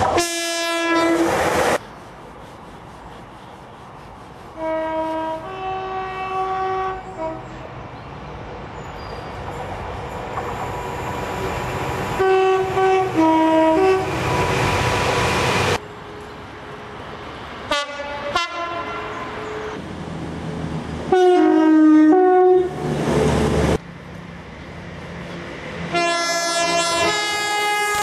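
Train two-tone horns sounded about five times in turn, each blast stepping between a lower and a higher note. Between the blasts, the noise of a train running on the rails swells up; several of the sounds cut off abruptly.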